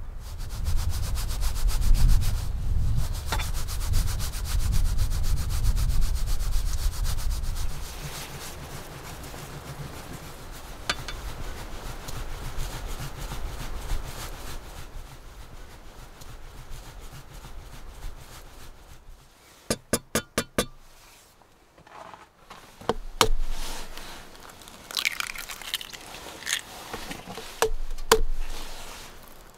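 Block of hard cheese grated on a Microplane rasp grater against a wooden cutting board: a rapid, steady rasping, heavy for the first several seconds and then lighter. Near the end come sharp cracks of eggs being broken on the rim of a bowl, after a quick run of five sharp clicks.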